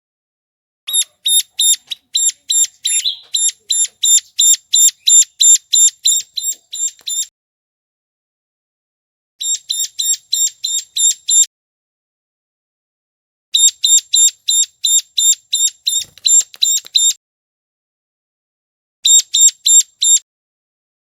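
Recorded calls of a ciblek gunung (a prinia) played as a trapping lure: rapid sharp, high chipping notes about four a second, in four bursts with short silent pauses between them, the first and longest lasting about six seconds.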